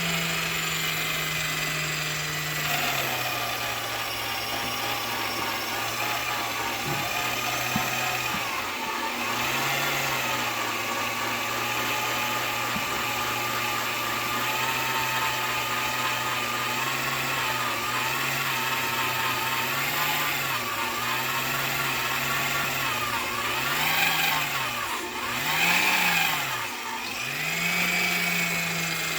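Vevor magnetic drill press drilling a hole through steel plate. The motor's whine drops in pitch as the bit takes the load and cuts, sags and recovers several times toward the end as it bites, then spins back up to free speed near the end.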